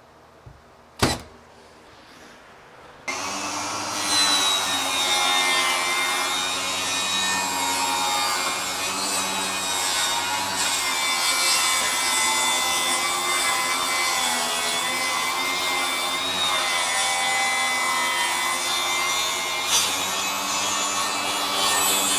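Milwaukee M18 FUEL 8-1/4-inch cordless table saw running and ripping strips of wood, a steady whining cut that starts about three seconds in and holds to the end. Before it, a single sharp click about a second in.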